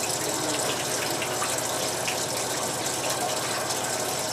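Freshly pressed sake pouring in a steady stream from the outlet pipe of a sake press and splashing into the liquid pooled below.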